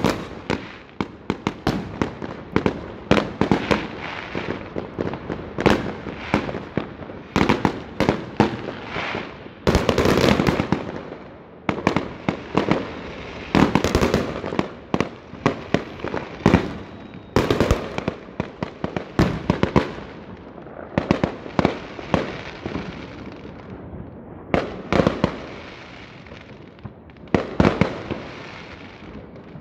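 Aerial fireworks going off: a near-continuous barrage of sharp bangs and crackles, with denser, longer runs of crackling about ten and fourteen seconds in.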